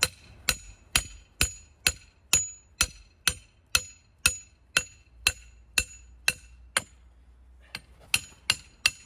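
Hammer tapping a steel helical pile extension down onto the pile shaft to seat it. The sharp, ringing metal strikes come evenly, about two a second. Near the end there is a short pause, then the strikes resume a little faster.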